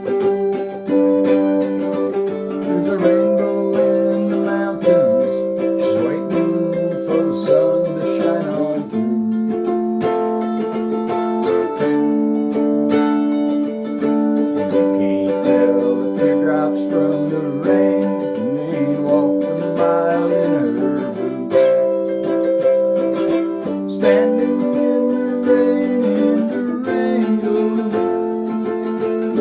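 Homemade cigar box stringed instrument with a single-coil pickup playing an instrumental passage: plucked, ringing notes over a sustained low note, with some notes sliding in pitch.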